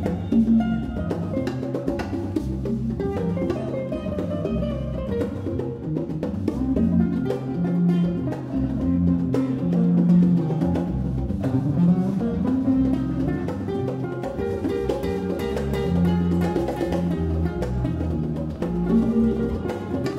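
Live jazz quartet playing: acoustic guitar, bass guitar and congas, with a prominent low bass line whose notes change every second or so and one note gliding upward about twelve seconds in.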